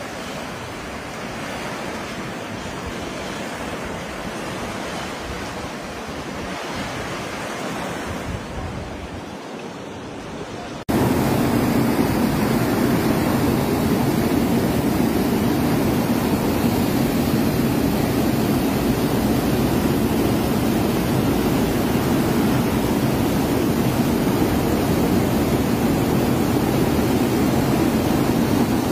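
Floodwater rushing: first a quieter steady wash, then, about a third of the way in, an abrupt change to a loud, steady rush of brown floodwater pouring over the wall of a flooded river lock with its weirs open and churning below.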